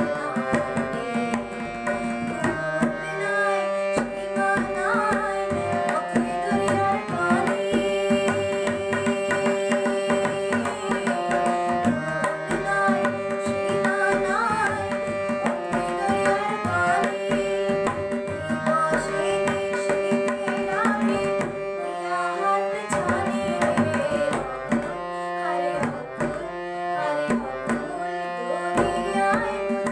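Girl singing a Bengali song with harmonium accompaniment, its reed notes held under the voice, while a tabla pair plays a steady, busy rhythm.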